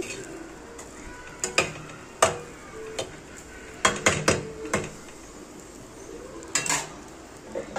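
Metal spatula stirring rice in an aluminium kadai, scraping and knocking against the pan in about a dozen sharp clinks, several bunched together around four seconds in, over a faint sizzle.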